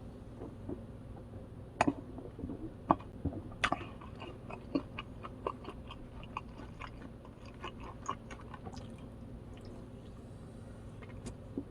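A person chewing and biting food close to the microphone: a rapid series of small sharp clicks, densest from about three and a half seconds in, over a steady low hum.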